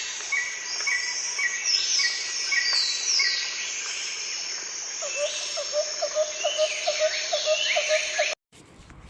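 A chorus of birds calling: repeated short chirps and falling, swooping calls, joined about halfway through by a run of lower chirps at roughly three a second. The sound cuts off suddenly near the end, leaving a quieter background.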